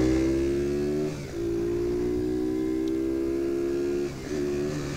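IceBear Champion CT70 clone's single-cylinder four-stroke engine, big-bored to 141cc, pulling hard under load. The revs climb steadily, drop briefly about a second in and again about four seconds in as it shifts up, then climb again.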